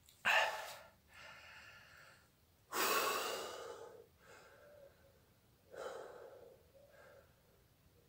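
A man breathing hard in and out through his open mouth, about five separate breaths with the loudest about three seconds in, against the burn of a Carolina Reaper chili pepper in his mouth.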